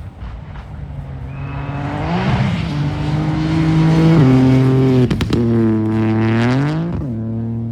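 Rally car engine approaching at full throttle and climbing through the gears in steps, with a few sharp cracks about five seconds in. It is loudest just before its pitch drops as it passes, then it runs on more steadily.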